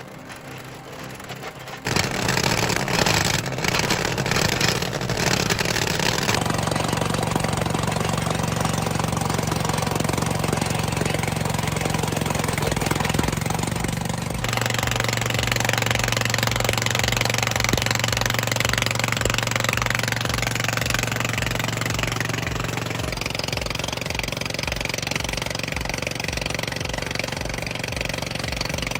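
Engine of heavy machinery running steadily, changing abruptly several times between clips, with a regular low pulsing in the later part.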